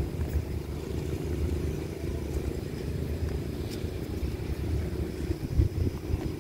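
Low, steady rumble of a departing diesel-hauled express train pulling away down the line, with wind buffeting the microphone and a brief low thump about five and a half seconds in.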